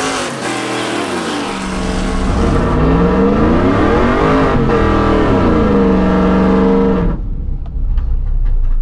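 Naturally aspirated engine of a pickup race truck on Holley EFI, running hard under acceleration, its pitch climbing, falling back and then holding steady. About seven seconds in the sound suddenly drops to a low rumble.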